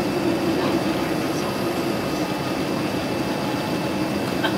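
Steady cabin noise inside a Boeing 787-9 airliner on final approach: jet engine and rushing air heard through the fuselage, with a low hum and faint steady high tones.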